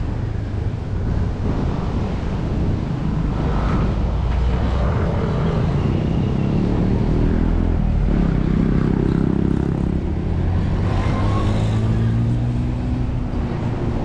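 An engine running close by over a constant low rumble. Its pitch shifts up and down about halfway through, then holds steadier near the end.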